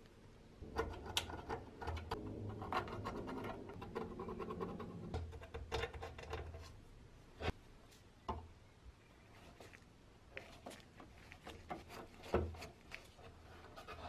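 Screwdriver and gloved hands working on the rusty metal top of a 1930 Peugeot Frères coffee grinder: metal scraping and rubbing for the first few seconds, then scattered clicks and ticks of metal on metal, the sharpest about twelve seconds in.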